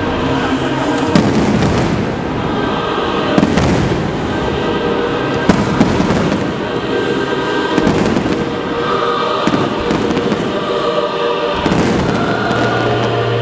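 Aerial fireworks bursting and crackling in rapid, overlapping volleys, with sharper bangs standing out about a second in and again around five and a half seconds in. Music plays underneath.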